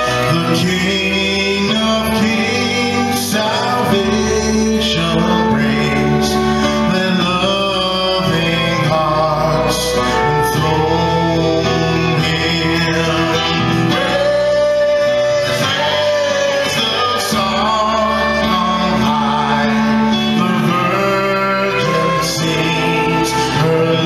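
A live praise band playing a song: a man singing over keyboard and acoustic guitar, with a steady bass line.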